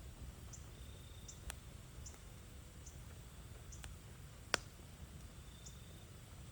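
Wood fire burning with a low steady rumble and sparse crackles, and one sharp pop about two-thirds of the way through.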